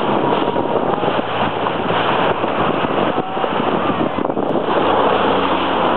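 Wind buffeting the microphone over water noise, with a jet ski engine running steadily underneath as a low hum that grows a little clearer near the end.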